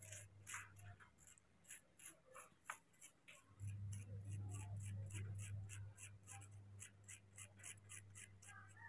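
Faint, rapid, even ticking, about four ticks a second, over a low hum that swells for a couple of seconds in the middle.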